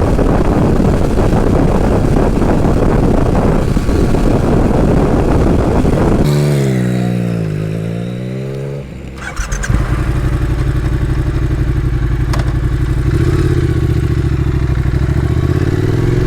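Motorcycle riding, its engine partly buried under heavy wind noise at first. About six seconds in the wind drops away and the engine note falls, then rises again. After a brief dip the engine runs at a steady pitch that climbs near the end as the bike accelerates.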